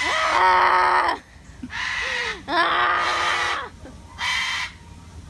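Cockatoo screeching, four loud harsh calls in a row, the first and third long and the second and fourth short.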